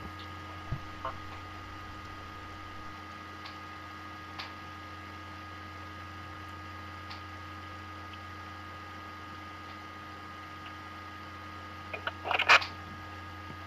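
Steady electrical mains hum on a phone-call recording, with a few faint clicks and a brief burst of crackle about twelve seconds in.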